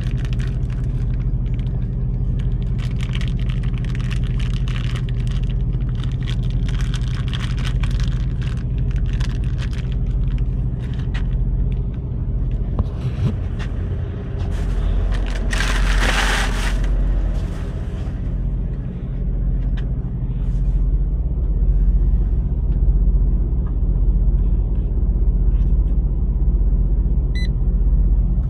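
Semi truck's diesel engine idling with a steady low rumble, while a plastic bag crinkles and rustles in the first half. A hiss lasting about two seconds comes a little past the middle.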